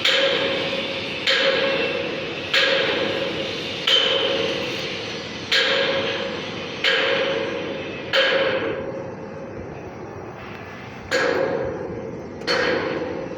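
Hammer blows on metal, roughly one every second and a half, each strike leaving the metal ringing as it fades, with a longer pause about two thirds of the way through.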